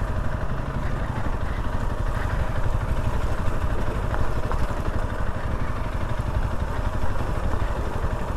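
Honda CRF300L's single-cylinder four-stroke engine running steadily at low, even revs as the dirt bike is ridden gently along a trail.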